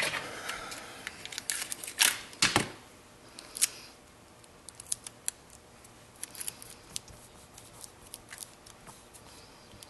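Adhesive tape being pulled, torn and pressed down over the laptop display's cable connector, with sharp crackles and clicks in the first few seconds, then light scattered ticks from handling the screen panel.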